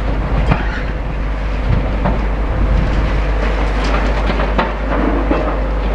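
Heavy demolition excavator at work: its engine runs with a steady low rumble while scattered knocks and clatter come from the building being pulled down.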